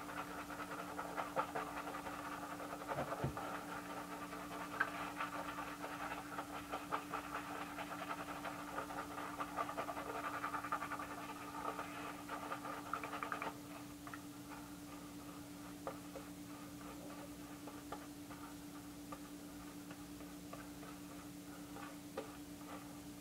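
Gold Dollar 6/8 stainless straight razor scraping through lathered stubble in short crackly strokes, dense for about the first half, then fainter and sparser. A steady low hum runs underneath.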